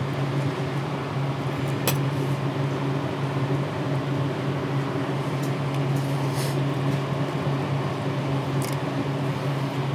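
Steady low mechanical hum, like a fan, with a few faint clicks as small parts are worked loose inside an open hard drive.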